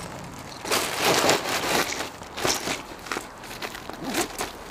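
Rustling and scraping as a fabric shoulder bag is handled and rummaged through right next to the microphone, with a loud rustle about a second in and several shorter ones after.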